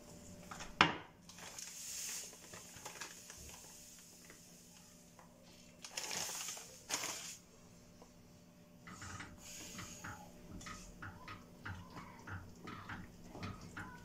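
Kitchen handling sounds: a sharp knock about a second in as a container is set down on the counter, two short rushing noises near the middle, then a run of light irregular taps and scrapes from a wooden spoon stirring a stainless steel pot over the last few seconds.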